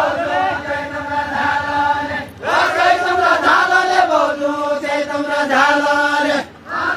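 Voices singing a far-western Nepali Deuda folk song together in long, drawn-out, chant-like phrases, with short breaks between phrases about two and a half seconds in and near the end.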